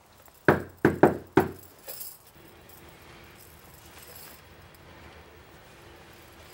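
Four sharp knocks on a door in quick succession, with a fainter knock just after, then a low steady room hum.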